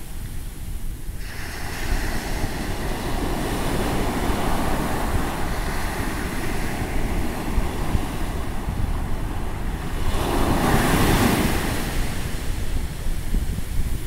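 Ocean surf washing up a sand beach in sheets of foam, a steady rushing that swells about a second in and surges loudest as a wave runs in about ten seconds in. Wind buffets the microphone with a constant low rumble underneath.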